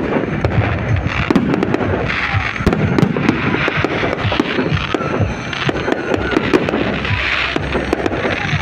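Fireworks display: a steady barrage of bangs and dense crackling.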